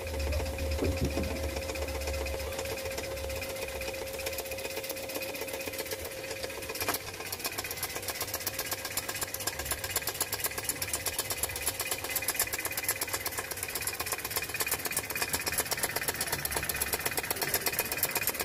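Homemade tin-can Stirling engine running over a gas burner, its wire crank and flywheel ticking in a fast, even rattle. The rattle grows quicker and louder after a click about seven seconds in.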